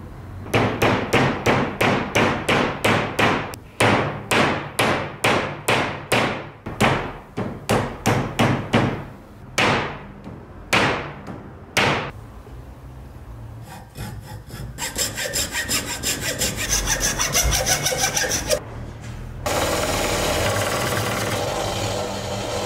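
Wooden hammer handle, clamped in a bench vise, being worked by hand with an abrasive: a run of even back-and-forth strokes, about two a second, for some twelve seconds. After a pause come quicker, lighter strokes. Near the end a belt sander runs steadily, grinding a small steel wedge for the handle.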